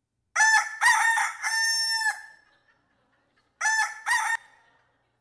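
A rooster's cock-a-doodle-doo crow from a lifelike prop rooster, loud and clean, followed by a second shorter crow about three and a half seconds in.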